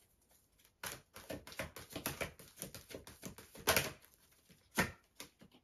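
Tarot cards being shuffled by hand: a quick, irregular run of card clicks and slaps starting about a second in, with a couple of louder slaps past the middle.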